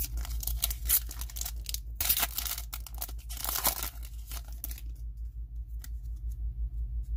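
Silver foil trading-card pack being torn open and crinkled by hand, with a run of tearing and crackling over the first four seconds, then quieter handling of the cards.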